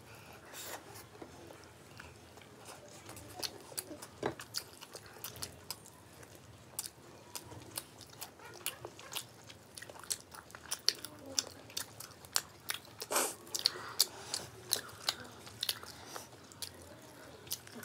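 Two people chewing and biting fried rice, pakoras and chilli chicken, eaten by hand, with many short, irregular crunches and wet mouth clicks.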